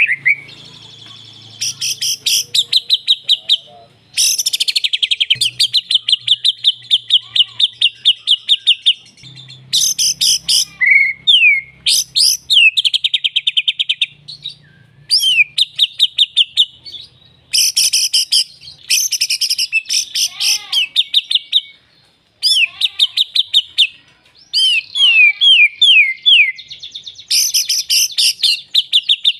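A contest-ready songbird singing loudly, in long runs of rapid repeated high notes and trills with quick downward-sweeping notes, phrase after phrase with short pauses between.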